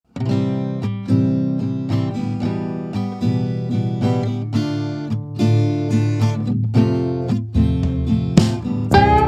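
Background music: a strummed acoustic guitar tune playing chords.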